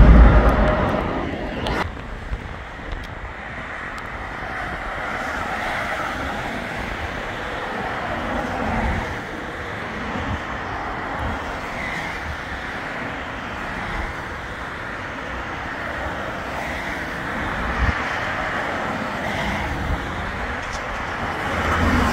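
Steady road traffic noise from a busy dual carriageway, with gusty wind rumbling on the microphone. A departing twin-engine airliner's roar fades away in the first second or so, and another jet's engine noise grows louder near the end as it takes off.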